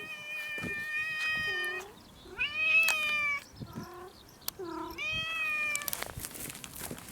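A cat meowing loudly and insistently for food. A long, drawn-out meow ends about two seconds in, a louder one follows, then two short, lower calls and another meow. A few light taps come near the end.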